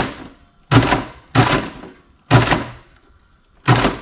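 Redcat 1964 Impala RC lowrider's servo hydraulics hopping, the car slamming down onto the work surface in five hard thunks at uneven gaps, each with a short ringing tail.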